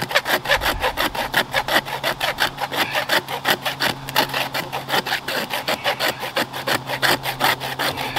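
Hand saw cutting through plastic sprinkler pipe in rapid, even back-and-forth strokes.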